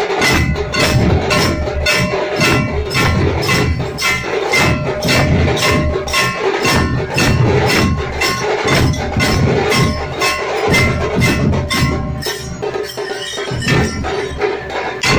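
Zanj, small brass hand cymbals, struck together in a steady rhythm of about three clashes a second, ringing, over loud drumming.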